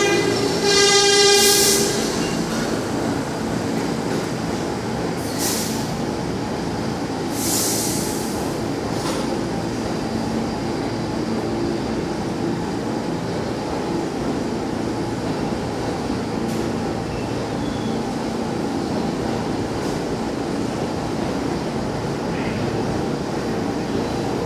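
New York City subway train pulling out of the station. Its horn sounds a short blast about a second in, then the rumble of the train and its wheels on the rails carries on steadily, with two brief hisses a few seconds in.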